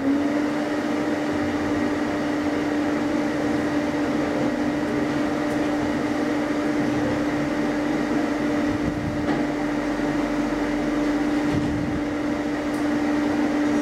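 Hydraulic elevator running as the car rises, heard from inside the car: a steady hum with one held tone from the hydraulic pump unit.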